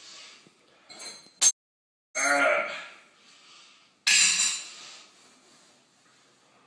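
A metal spoon clinks once against a ceramic bowl with a brief ring, followed by a short wordless vocal noise and a loud breathy burst.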